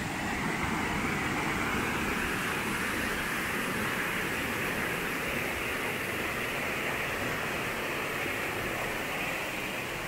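Steady rush of water falling over the Moramo Waterfall, an even, unbroken noise.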